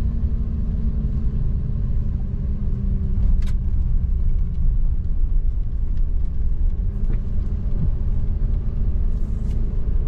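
Pickup truck heard from inside the cab while driving slowly on a wet dirt road: a steady low engine and road rumble, with a few faint ticks.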